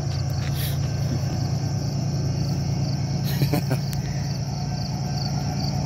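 Crickets chirping steadily, about two chirps a second, over a steady low hum.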